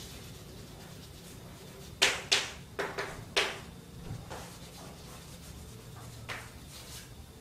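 Chalk writing on a blackboard: sharp taps and short scratches of the chalk, loudest in a quick run of about five strokes between two and three and a half seconds in, softer strokes later. A low steady room hum runs underneath.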